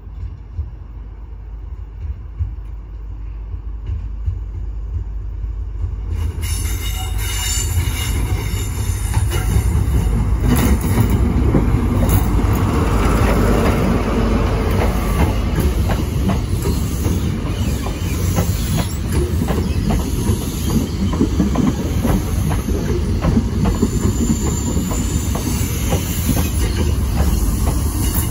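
InterCity 125 high-speed train with Class 43 diesel power cars passing slowly round a curve. The diesel engine and running noise build over the first ten seconds or so and then hold steady as the Mk3 coaches roll by, with the wheels clicking over rail joints and squealing at times on the curve.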